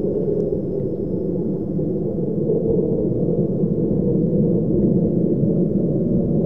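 F-35 fighter jet's single F135 turbofan engine heard from the ground as the jet flies overhead: a steady, deep jet noise that dips slightly about a second in and then builds again.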